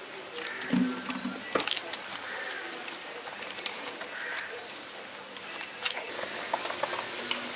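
Wire whisk clicking and scraping against a steel bowl as gram-flour batter is beaten, with water being poured in, in irregular quick ticks and a few louder knocks. A steady high hiss runs behind it and stops about six seconds in.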